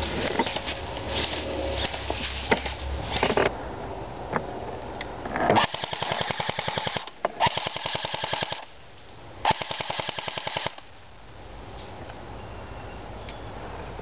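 Airsoft rifle firing three bursts on full auto, each about a second long, in a rapid, even rattle of shots. Before the bursts there is rustling and a few scattered single snaps.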